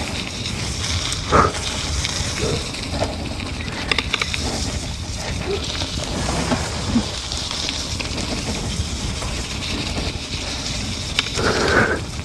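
Riding noise from an electric mountain bike on a gravel and grass track: tyres crunching over stones with light clicks and rattles, and wind rumbling on the microphone. There is a brief louder sound near the end.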